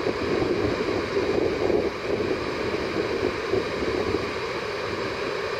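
Ocean surf breaking and rushing ashore in a steady, continuous wash: rough, typhoon-driven waves. Wind buffets the microphone.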